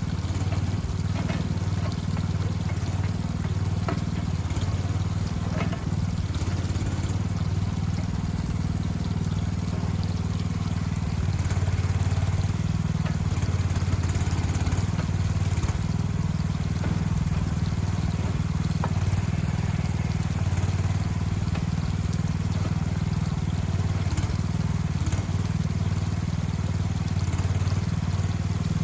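A large machine engine running steadily, with a few short knocks and cracks in the first several seconds.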